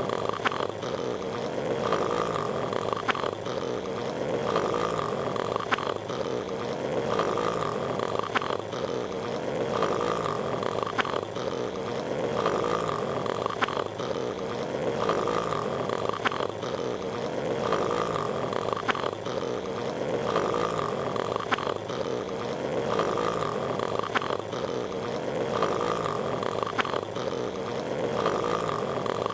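Cartoon snoring of Patrick Star from SpongeBob SquarePants, looped without a break: a steady noisy snore with a higher note that comes back every two to three seconds, and sharp clicks scattered through it.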